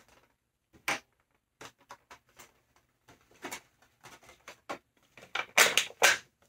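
Stiff plastic packaging tray crinkling and clicking in irregular snaps as it is pulled and pried loose from the tape holding it down, with a cluster of louder crackles near the end.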